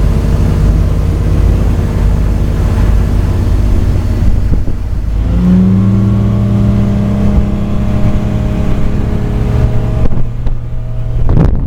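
Motorboat engine running under way, speeding up quickly about five seconds in and then holding a higher, steady pitch until it eases off near the end.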